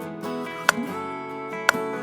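Background acoustic guitar music, strummed and plucked, with a sharp timer tick exactly once a second, two ticks here.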